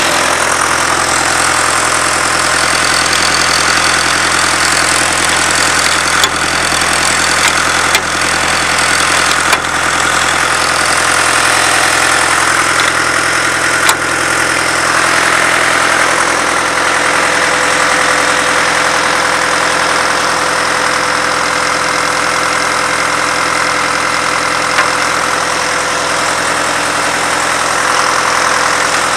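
An engine idling steadily, with a few sharp metallic clicks.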